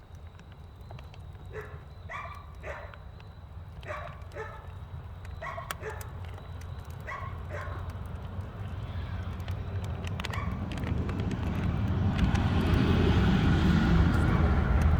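A dog barking, about nine short barks, several of them in quick pairs. After that a vehicle's rumble grows steadily louder as it approaches.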